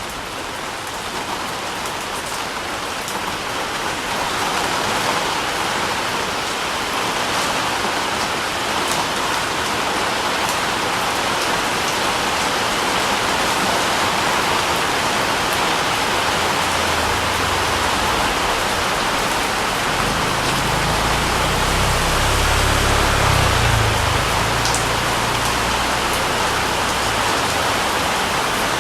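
Steady rain falling on a surface, a dense even hiss with scattered individual drop ticks. A low rumble swells in beneath it a bit over halfway through and fades again near the end.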